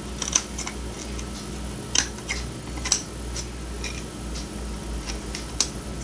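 Scissors snipping through decorative tape on a plastic light switch cover plate: a series of short, sharp snips at irregular intervals.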